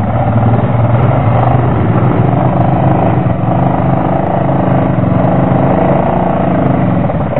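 ATV (quad) engine running loudly at a fairly steady pitch while the quad is bogged in deep mud.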